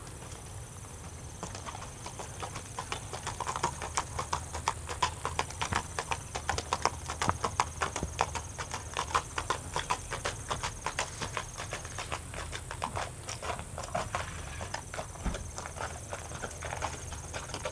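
Tennessee Walking Horse's hooves striking a gravel lane under a rider at a gait: a quick, even run of sharp clip-clops that starts about a second and a half in.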